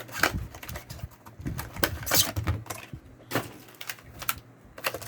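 Irregular clicks and rustles of trading cards being handled and flicked through by hand.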